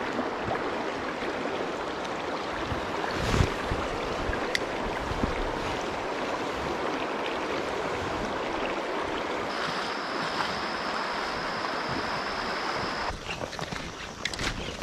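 Steady rush of flowing river current, with a sharp knock about three seconds in. Near the end it cuts to a quieter, uneven background.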